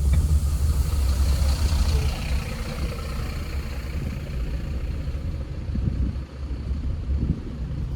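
Vehicle on the move: a steady low engine and road rumble with a wash of noise over it.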